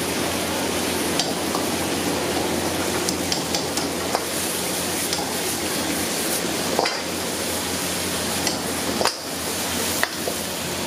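Vegetable Manchurian being stir-fried in a steel wok, sizzling steadily, while a metal ladle scrapes and clanks against the wok several times.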